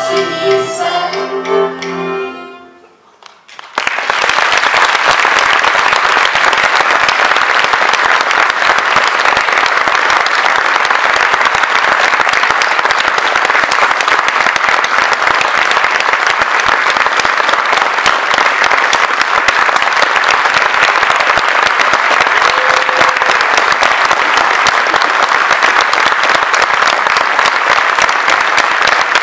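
A children's choir holds its last sung notes, which die away about three seconds in. Then an audience breaks into long, steady applause that lasts to the end.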